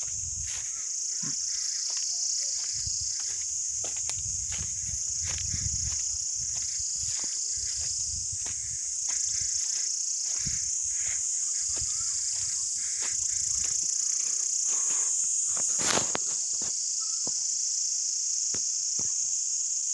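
Steady high-pitched drone of an insect chorus in pine forest, with scattered clicks and knocks and one sharper knock about 16 seconds in. A low rumble under it stops about 14 seconds in.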